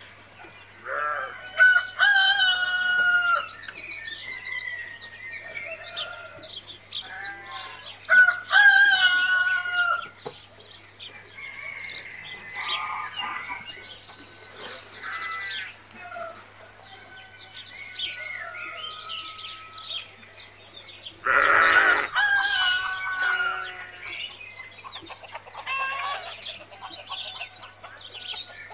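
Rooster crowing three times, each crow a couple of seconds long, with small birds chirping all the way through.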